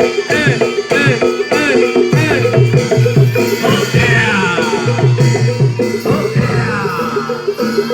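Live Javanese barongan accompaniment music: drums beating a steady pattern under a repeating line of pitched percussion notes, with a high melody line that slides downward twice in the middle.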